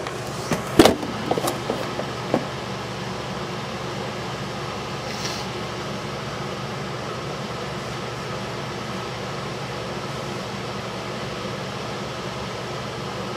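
Steady hum and hiss of a kitchen range hood fan running over the stove. A few knocks and clicks in the first two seconds or so.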